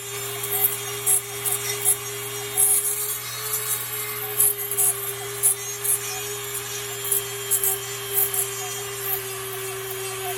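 Dremel rotary tool with a grinding stone bit running steadily, its bit grinding a stop notch into the steel knife blade, with irregular short scratchy bursts as it bites into the metal.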